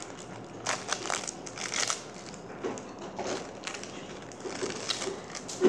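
Thin plastic film wrapper crinkling and crackling in irregular bursts as it is peeled by hand off an individually wrapped cheese slice.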